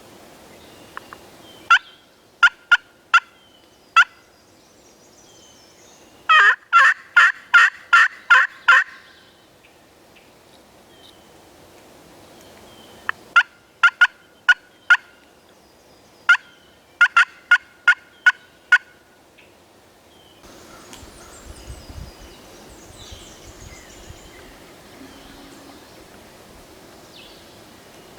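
Turkey calling in four short series of sharp repeated notes, the loudest a fast run of about eight notes near the middle. Faint rustling follows after about twenty seconds.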